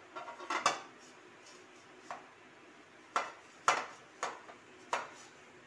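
Metal steamer lid knocking and clinking as it is handled and wiped dry of condensation with a cotton cloth. A quick cluster of knocks comes near the start, then five single sharp clinks follow about half a second to a second apart.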